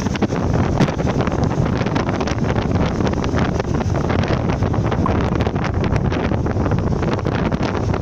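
Strong sea wind buffeting the microphone in constant gusts, a heavy rumbling blast, with waves washing onto the sandy shore underneath.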